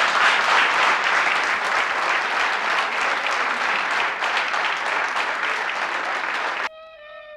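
Audience applauding, a dense, steady clapping that cuts off abruptly near the end, where violin music begins.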